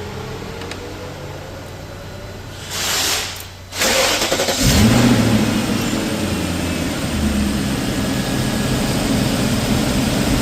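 BMW M62 V8 engine cold-started after a timing chain guide and VANOS rebuild: about four seconds in it catches, flares up in revs, then settles into a steady idle.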